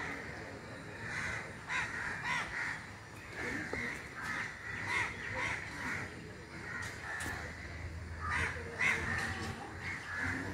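Crows cawing, many calls one after another.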